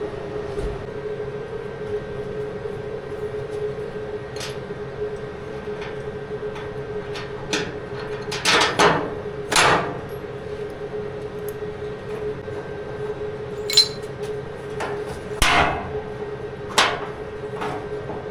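Scattered sharp metallic knocks, loudest in a cluster about halfway through and in single strikes near the end, over a steady hum: metal parts being knocked into place while the tailgate hinges are fitted.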